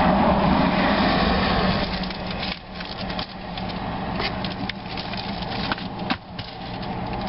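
Road traffic noise of a vehicle passing close by, dropping away suddenly about two and a half seconds in. After that, papers and a document cover are handled with rustling and small clicks over a steady low hum.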